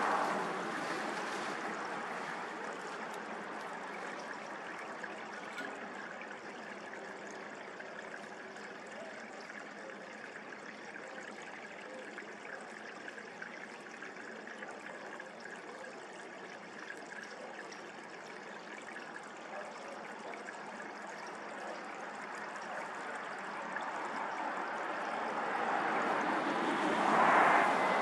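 Steady rushing background noise with no distinct events, growing louder over the last few seconds.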